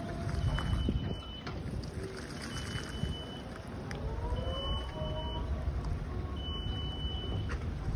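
Snorkel A38E electric boom lift's travel alarm beeping as it drives, one high, steady beep about a second long roughly every two seconds. Under it is a low rumble and a faint whine that rises in pitch midway.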